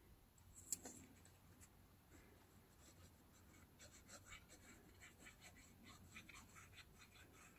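Near silence, with a soft click a little under a second in and then faint, scattered scratches of a plastic glue bottle's nozzle being drawn along a strip of newspaper.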